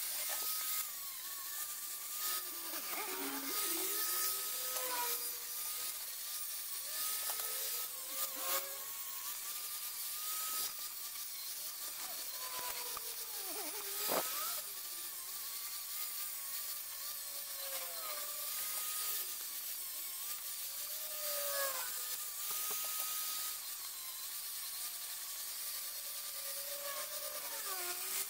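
Angle grinder running a disc against steel, with a hiss of grinding. The motor's whine repeatedly drops in pitch as the disc is pressed into the metal and climbs back as the pressure eases.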